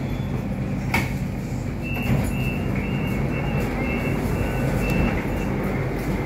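Steady low hum of a Hong Kong MTR Light Rail train, heard from inside the car. There is a sharp click about a second in. From about two seconds in there is a run of short, high-pitched electronic beeps, roughly three a second, lasting about three seconds.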